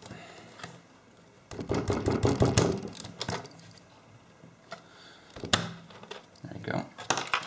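Metal hand tool prying and scraping at the edge of a plastic enclosure to work a stuck circuit board loose. A loud stretch of scraping and rattling comes about a second and a half in, a single sharp click follows a little past five seconds, and small clicks come near the end.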